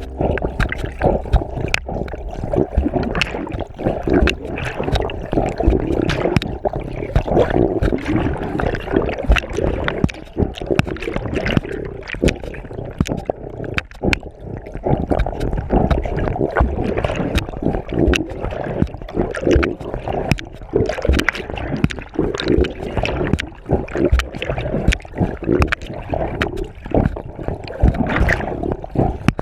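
Water sloshing and splashing without a break, with many small sharp knocks and clicks.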